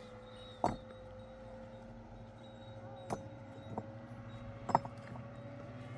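Steady mechanical hum of a running motor, with four sharp clinks or knocks at irregular intervals, the loudest near the start and about three-quarters of the way through.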